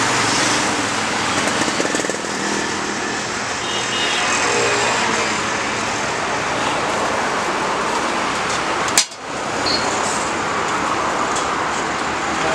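Steady roadside traffic noise with faint background chatter, broken by a single sharp click about nine seconds in.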